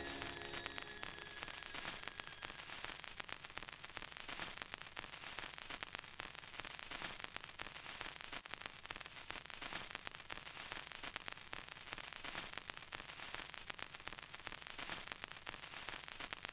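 Steady hiss with scattered crackles and pops: old-film soundtrack crackle. The last notes of the music ring out and fade in the first couple of seconds.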